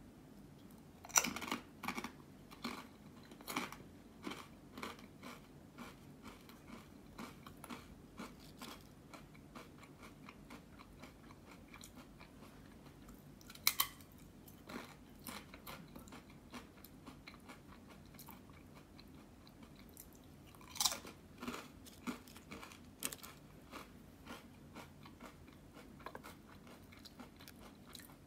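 A person biting into a Pringles potato crisp with a sharp crunch about a second in, then chewing it in a run of short crisp crunches. Fresh bites crack again around the middle and about two-thirds of the way through.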